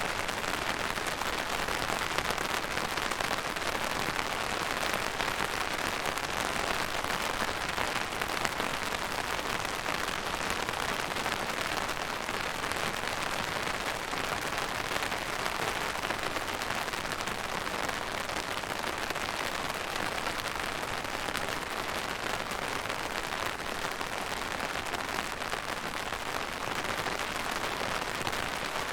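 Steady rain falling and pattering on a surface, an even hiss of many drops with fine crackle throughout.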